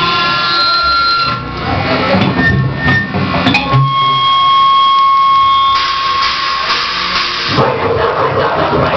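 Live band playing loudly, with drums and electric guitars, heavily distorted on the recording. Long steady high tones stand out in the middle.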